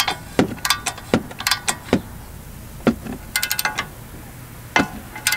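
Hand tools and a socket clinking and knocking against steel front-suspension parts: a scattering of sharp metallic clicks with brief ringing, with a quick run of clicks about three and a half seconds in.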